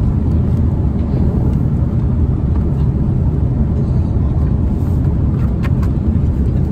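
Steady low rumble of jet airliner cabin noise inside an Airbus A330-300, with a few light clicks about five and a half seconds in.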